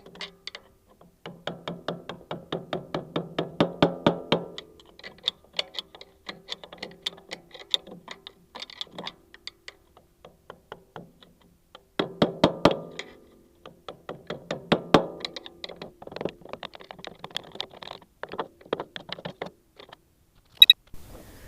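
Rapid scraping and knocking as packed dirt and rocks are dug out from around the bucket tilt pin of a Future FT36C mini skid steer, in two busy stretches with a short pause between them. The packed debris is jamming the bucket's tilt-back and gouging the metal at the pin.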